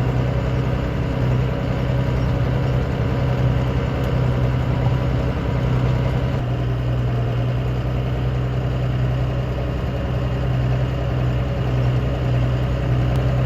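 Diesel engine of a Case IH 5250 Maxxum tractor running steadily at an even speed, with a constant low hum.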